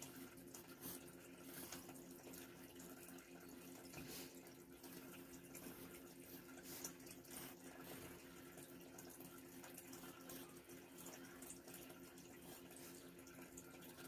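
Faint scratching of a pencil drawing on sketchbook paper in short irregular strokes, over a low steady hum.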